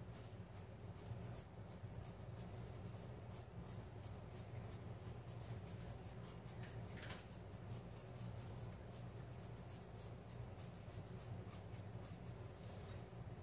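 Pencil scratching on sketch-pad drawing paper in quick short shading strokes, about three or four a second, hatching along contour lines.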